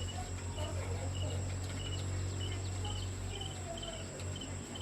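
Insects chirping and droning, with short repeated high chirps and a steady thin high tone, over a steady low hum.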